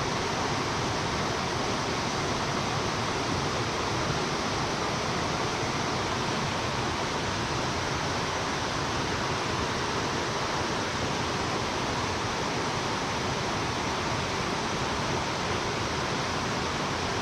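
Steady rushing of running stream water, an even hiss that holds without change.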